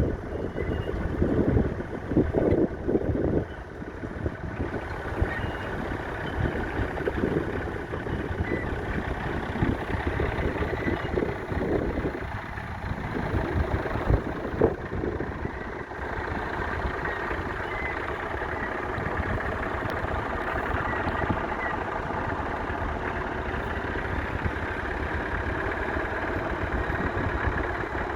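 1964 Massey Ferguson 35X's 2.5-litre three-cylinder diesel engine running steadily. Wind buffets the microphone in the first few seconds.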